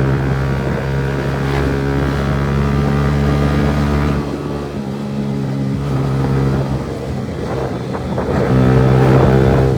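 Motorcycle with a loud aftermarket exhaust running under way, its engine note steady, easing off and blurring about four to five seconds in and again around eight seconds, then coming back steadier and louder near the end.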